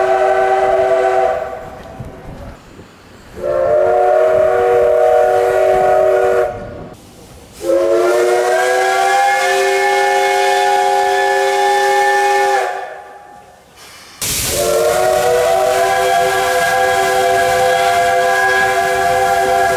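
Steam whistle of the C12 66 steam locomotive blown wide open in long, loud blasts that sound several tones at once. One blast is already sounding and stops about a second in, then three more follow; the middle one is the longest, at about five seconds, and slides up slightly in pitch as it opens.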